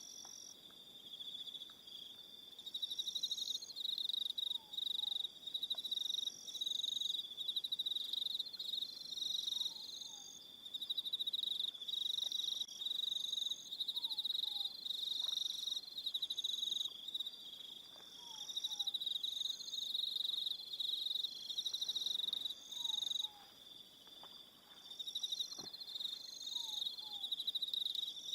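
Crickets chirping in an evening chorus: high, fast trills that swell in bouts of a few seconds and briefly drop back between them. Faintly beneath, a short falling two-note call repeats every four seconds or so.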